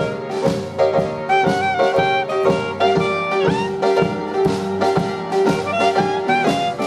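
Jazz-style instrumental music with horns and a steady beat, under a long held note.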